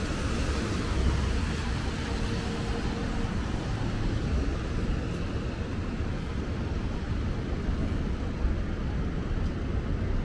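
Steady city street noise: a low traffic rumble with no single event standing out.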